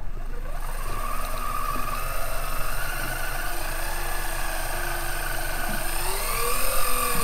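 Shimano Beastmaster electric fishing reel winding a hooked fish up from deep water, its motor whining steadily; the pitch rises and falls about six seconds in as the load on the line changes.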